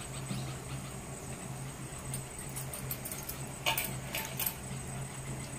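Glass bangles clinking and a hand rustling through damp rice flour as it is scooped and packed into a bamboo puttu tube, with two sharper clinks in the second half. A steady low hum runs underneath.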